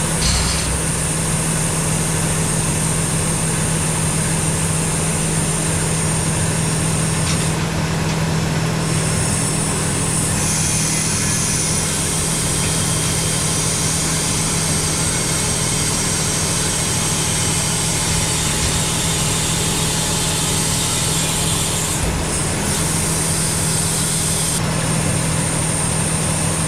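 An engine running steadily at idle, with an even, unchanging hum.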